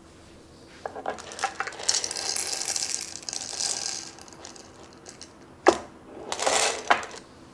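Small hard objects clattering and rattling, with a few sharp clicks and knocks: about two seconds of dense clatter, then two louder knocks with a brief rattle between them near the end.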